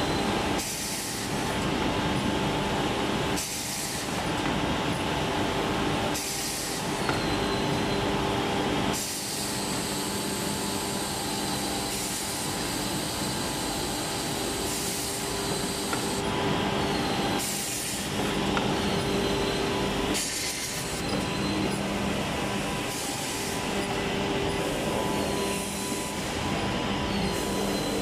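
HiCAS F586HC high-speed edge banding machine running: a steady mechanical hum and rush, broken every few seconds by short bursts of higher, hissing noise.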